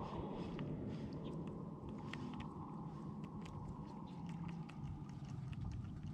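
A baitcasting reel being cranked through a lure retrieve: faint irregular clicking over a steady low rumble of wind on the microphone.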